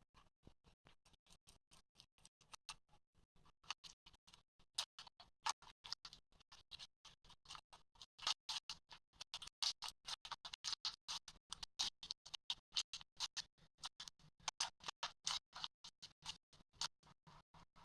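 Slime being squeezed and poked by hand, giving a rapid run of small clicks and pops, several a second, louder in the middle stretch.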